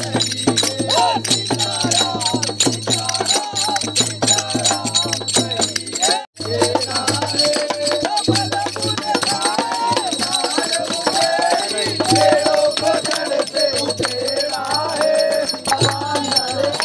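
Devotional song sung by a group of people, with jingling hand percussion rattling fast and steadily under the voices. The sound cuts out for an instant about six seconds in.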